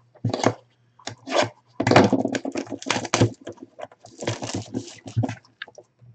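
Clear plastic shrink wrap on a cardboard box crinkling and crackling as hands grip and work it open, in irregular rustles, over a faint steady low hum.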